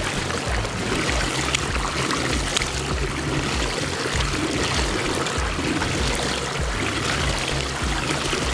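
Water swirling in a whirlpool and draining down the hole at its centre: a steady rush of water with a few small splashes.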